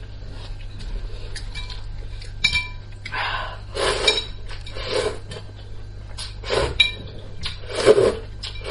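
Slurping of hot and sour noodles (suanla fen) from a bowl of chili broth, four or five slurps about a second apart, with chopsticks clinking against the bowl, the sharpest clink about two and a half seconds in.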